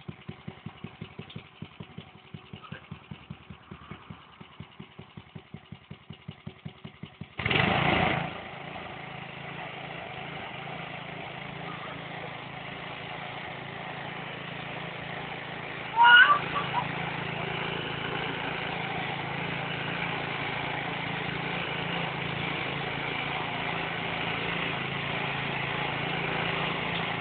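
Small petrol engine of a motor tiller running with a regular pulsing beat. About seven seconds in there is a brief loud burst, and the engine then runs steadily and louder as the tines work the soil. A brief sharp, rising sound comes about halfway through.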